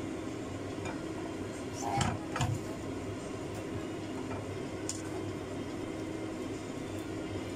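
Slotted plastic spatula stirring a thick creamy sauce in an aluminium frying pan, with two louder knocks or scrapes against the pan about two seconds in, over a steady low hum.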